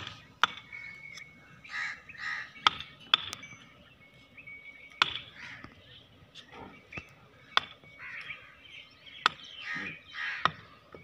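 Hammer driving a hoof-trimming blade (nahan) into a buffalo's hoof, a sharp knock every second or two as the overgrown hoof is pared back. Birds call in the background.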